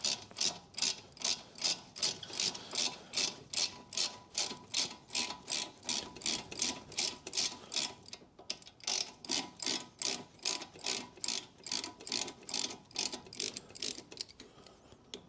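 A ratchet with a 7mm Allen bit clicks in a steady quick rhythm, about two to three clicks a second, as it winds out a brake caliper guide bolt. There is a short break about halfway through.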